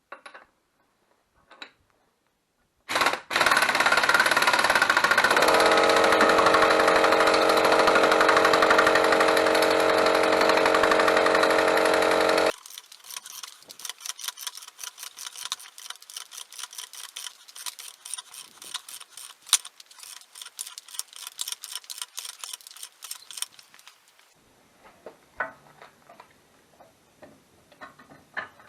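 Pneumatic impact wrench running steadily for about nine seconds, then cutting off abruptly. A long run of fast, light clicking follows, fading to scattered ticks near the end.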